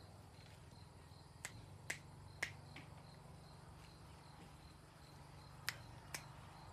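Quiet ambience with insects chirping faintly and steadily, broken by about six short sharp clicks: three or four about half a second apart a second and a half in, and two more near the end.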